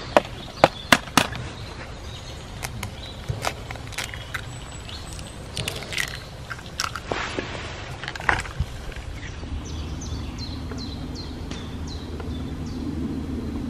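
Eggs cracked on the rim of a steel frying pan of bacon and beans: four sharp taps about a second in, then scattered clicks and scrapes as the shells are broken and the eggs dropped in.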